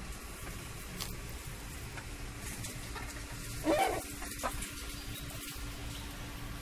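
A single short animal call about four seconds in, with a fainter one just after, over steady low rumbling.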